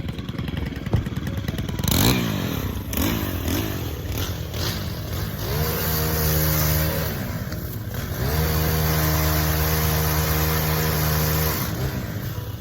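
Small two-stroke engine of a gas pole pruner revving, its pitch sweeping up and down several times, then held at full throttle twice for a few seconds each.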